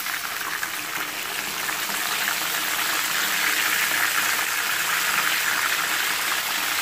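Fish pieces shallow-frying in hot oil in a pan: a steady sizzle that grows a little louder over the first few seconds while the pieces are turned over.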